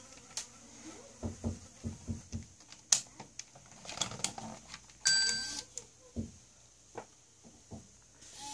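Canon MV630i MiniDV camcorder's cassette eject being worked: a string of small plastic clicks and knocks from the OPEN/EJECT switch and cover, then about five seconds in a short mechanical burst with a steady whine as the eject mechanism drives the cover open. It is an eject attempt on a camcorder with a faulty eject mechanism that will not let the tape out.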